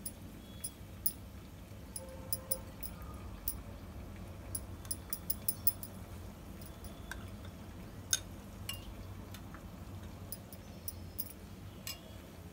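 A spoon clinking against a bowl in short, irregular clinks while spices are stirred into yogurt, over a low steady hum.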